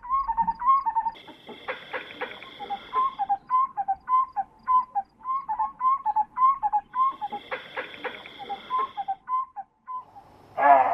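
African bushveld wildlife calls: a rapid series of short pitched call notes, about three a second, with a steady high buzz rising twice in the background and one louder call near the end.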